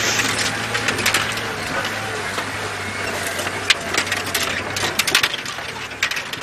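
Open safari vehicle driving off-road through dry bush, crushing and snapping dead branches and twigs with many sharp cracks over a steady low engine hum that fades about five seconds in.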